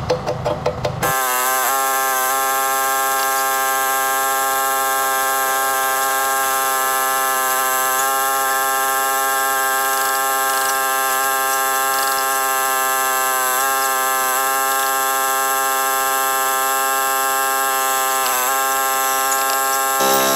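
A steady buzzing drone: one held pitch with many overtones and no bass, starting abruptly about a second in. It stays level throughout, with a few brief wobbles in pitch.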